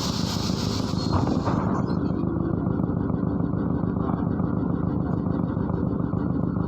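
Cabin noise inside a MAZ-103 city bus: its diesel engine and running gear giving a steady low rumble. A high hiss over the first couple of seconds dies away about two seconds in.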